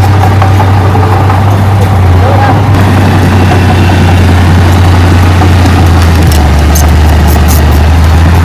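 Diesel engine of heavy earthmoving machinery running steadily at close range, a loud, deep drone that drops slightly in pitch about six seconds in.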